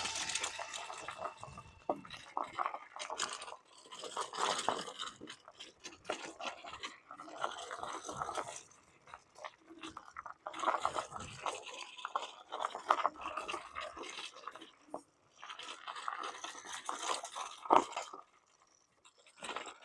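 Intermittent crunching and scraping on a dirt trail surface, in uneven groups every few seconds with small clicks between them.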